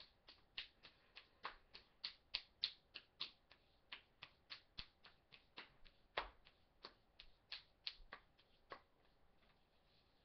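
A quick series of light, sharp clicks, about three or four a second, ending about nine seconds in.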